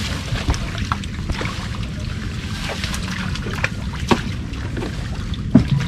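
Water splashing and trickling with scattered small knocks as a fish trap is handled and emptied, over a steady low rumble.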